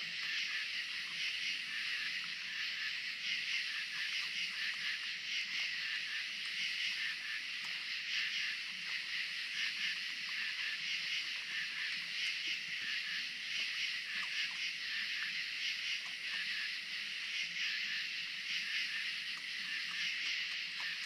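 Steady high-pitched chorus of night insects, an unbroken shrill buzzing with a fine, rapid pulsing texture.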